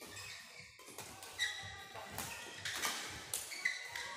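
Badminton rackets striking a shuttlecock during a doubles rally: about six sharp hits, roughly every half second, with short high squeaks of shoes on the court mat.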